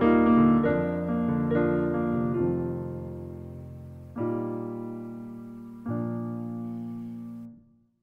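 Digital piano playing the slow closing chords of a piece: the chords come further apart, with the last two about four and six seconds in, each left to ring and fade, and the sound dies away just before the end.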